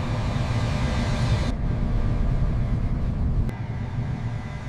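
Boeing 777's jet engines at takeoff power during liftoff, a steady deep rumble with a hiss over it. The hiss drops abruptly about a second and a half in, and the rumble drops near the end.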